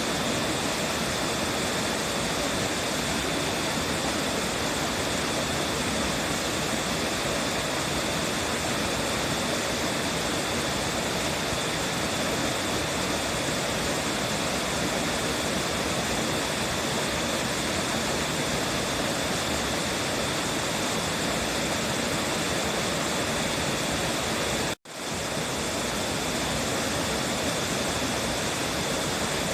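Water pouring over the Yokokawa Shimotaki waterfall, a steady rushing noise. The noise cuts out for an instant about 25 seconds in, then comes straight back.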